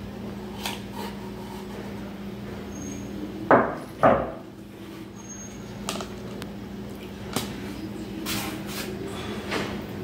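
Hard plastic and metal ceiling-fan parts clacking as they are handled and fitted together. Two loud knocks come half a second apart near the middle, with lighter clicks and taps around them, over a steady low hum.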